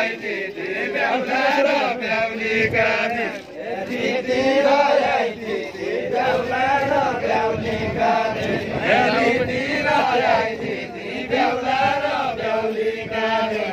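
A group of men singing a Bajureli deuda folk song together, a chanted melody in repeated phrases a few seconds long with short breaks between them.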